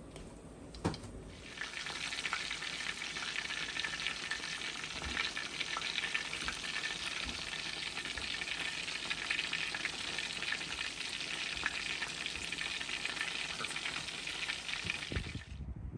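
Panko-breaded chicken deep-frying in hot oil: a dense crackling sizzle that starts about a second and a half in and cuts off suddenly near the end.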